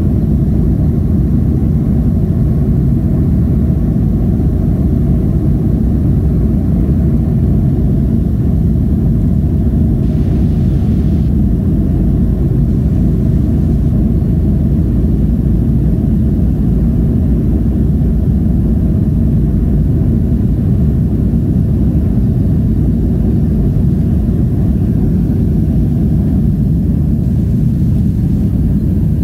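Boeing 737-500 on its takeoff roll heard from inside the cabin: the CFM56-3 engines at takeoff thrust and the wheels on the runway make a loud, steady low rumble.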